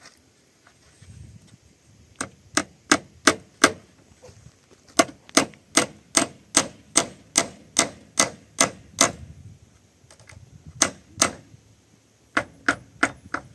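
Hammer blows on a wooden roof beam, nailing it in place: about two dozen sharp strikes in four runs, roughly two to three a second, the longest run about a dozen blows.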